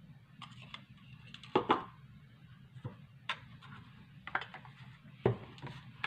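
Light knocks and clicks of a paint cup and spatula being handled and set down, about eight in all, the loudest about one and a half seconds in and about five seconds in, over a low steady hum.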